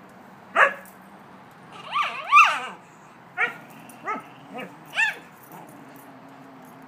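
A husky and a puggle at play, barking and yowling: one sharp bark, then two drawn-out calls that rise and fall about two seconds in, then four shorter barks.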